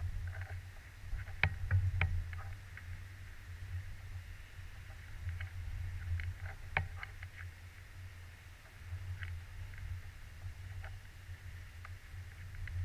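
Wind buffeting the camera's microphone as a low rumble that swells and fades in gusts, with scattered faint clicks and ticks.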